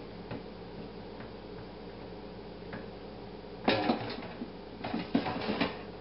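Kitchenware being handled: a sharp clatter about two-thirds of the way through, then a quick run of lighter knocks and clicks, over a steady low hum.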